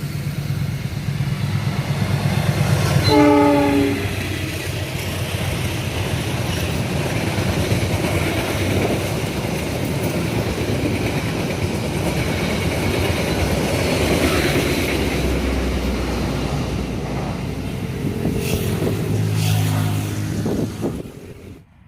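A CC 206 diesel-electric locomotive sounds one short horn blast about three seconds in, then the train runs past with a loud rumble and wheel-on-rail clatter. The sound cuts off abruptly near the end.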